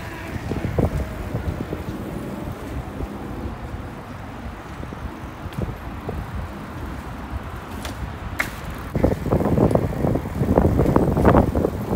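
Wind buffeting a moving microphone over the low rumble of bicycle tyres rolling on asphalt. The wind noise grows much louder about nine seconds in.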